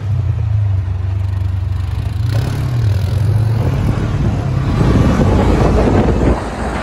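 Side-by-side dune buggy's engine running with a steady low drone. About two seconds in, a rushing noise joins it, grows louder, and drops off suddenly near the end.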